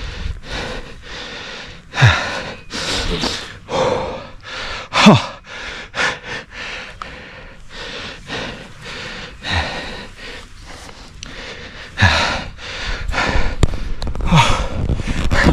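A man breathing hard and gasping, with loud, deep breaths every second or so, some of them voiced and dropping in pitch.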